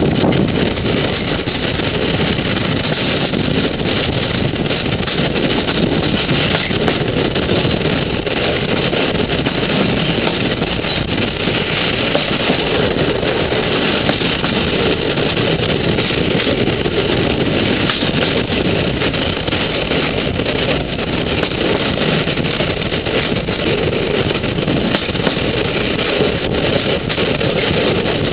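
Steady, unbroken running noise of a moving vehicle, with no clear knocks or changes.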